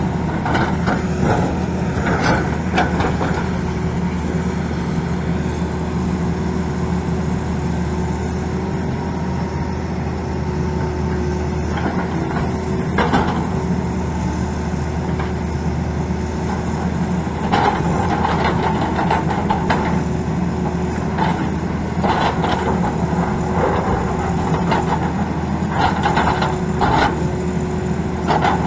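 Tata Hitachi excavator's diesel engine running steadily, with sharp clanks and scrapes from the road-cutting work at intervals of a few seconds.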